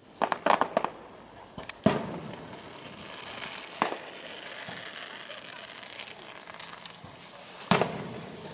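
Aerial fireworks shells bursting: a quick run of crackling pops in the first second, then single booms about two seconds in, near four seconds and near the end, each trailing off in a rumble.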